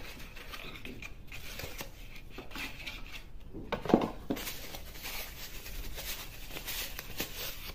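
Cardboard box flaps and a paper wrapping rustling and crinkling as a beard trimmer is slid out of its inner box and unwrapped, with one sharp knock about four seconds in.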